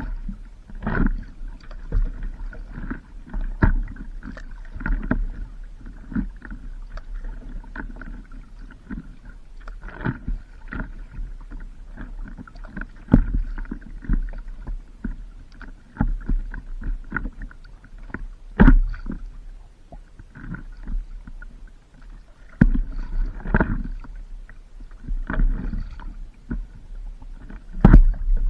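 Water splashing and slapping around a stand-up paddleboard being paddled on the sea, with irregular sharp knocks or splashes every second or few over a continuous low rumble.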